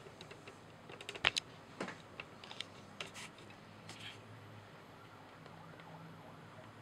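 A scatter of light clicks and taps from things being handled on a tabletop, the loudest about a second in, dying away after about four seconds to a faint low hum.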